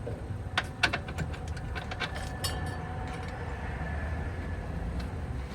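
A handful of sharp metallic clicks and clinks, mostly in the first half, over a steady low hum, as from hand tools and parts being handled during car suspension work.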